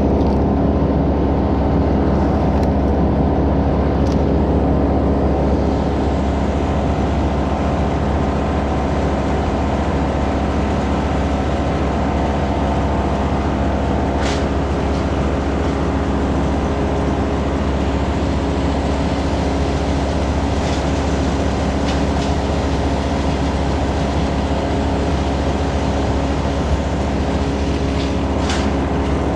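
A large engine running steadily at constant speed, with a couple of faint knocks about halfway through and near the end.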